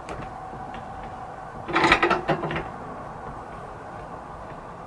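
A wrench clattering against the motorcycle's steering-stem top nut and upper triple clamp, one short burst about two seconds in, over a faint steady hum.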